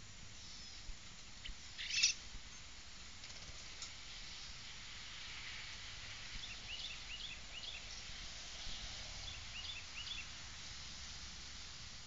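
Small songbirds chirping in runs of quick short notes, about halfway through and again near the end, over a faint steady hiss. A single brief, louder burst comes about two seconds in.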